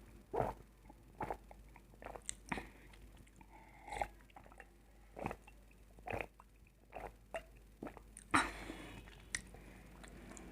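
A person eating with mouth sounds: irregular wet smacks, bites and crunches a few times a second, with a louder, longer crunch about eight seconds in.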